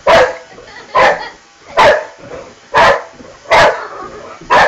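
Boxer dog barking: six loud, sharp barks, roughly one a second.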